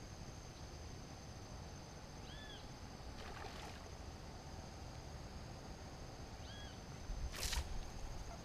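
Quiet outdoor ambience with a steady, high-pitched insect drone and two short bird chirps, a few seconds apart. A brief burst of noise comes about seven seconds in.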